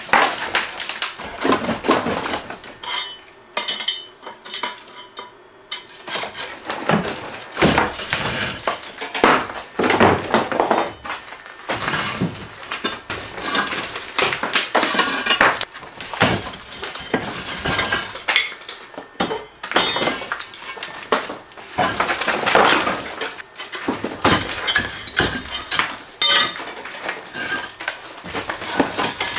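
Cinder blocks of a chimney being taken apart by hand: repeated scraping, clinking and knocking as blocks are worked loose and lifted off the stack, with broken bits of block and debris rattling.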